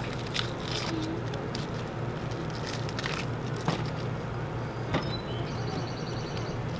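A yellow onion being peeled by hand and handled over a plastic cutting board: a few short, scattered crackles and clicks of dry onion skin and handling. Underneath runs a steady low hum, and near the end there is a brief high buzzy call.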